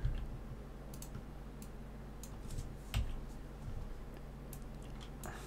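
Computer keyboard keystrokes: a handful of separate clicks about a second apart, over a low steady hum.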